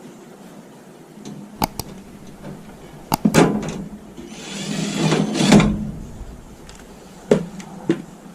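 Handling noises from work on a microwave oven: several sharp clicks and knocks, with a scraping slide lasting about a second and a half near the middle.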